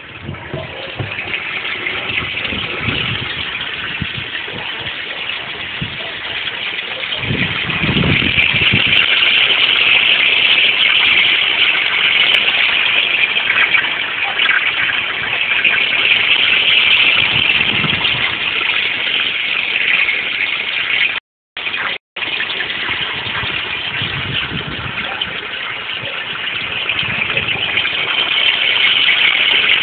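Steady rushing and splashing of water pumped through a homemade pond filter fed by a 3000 L/h pump, during its first test run. The sound cuts out briefly twice about two-thirds of the way through.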